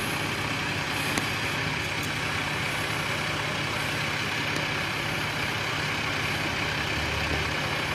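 Kyoto Tango Railway diesel railcar standing with its engine idling steadily, a low, even running sound with a single small click about a second in.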